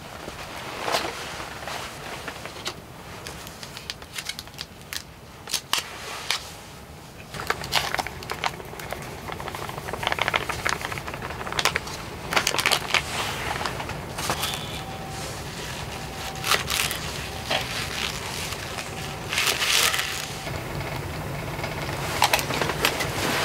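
Food-prep handling noises: stainless steel bowls and utensils knocking and clinking on a wooden table, with crinkling and rustling of packaging, in many short clicks and taps. A steady hiss joins underneath about a third of the way in.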